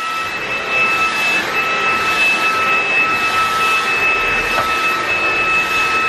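Dreame XR cordless stick vacuum cleaner running steadily on a suction setting above its lowest, a steady high motor whine over airflow hiss as its floor brush goes over a carpet rug.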